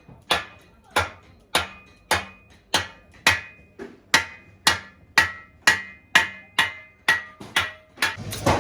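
Hammer striking metal in steady, even blows about two a second, each blow ringing briefly.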